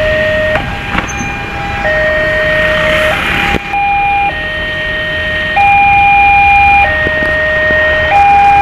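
Two-tone electronic warning alarm, alternating steadily between a higher and a lower note about every second and a quarter, over a background rush of noise.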